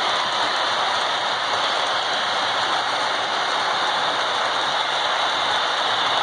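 Model freight cars rolling past on the track, a steady rattling clatter of small wheels on rail.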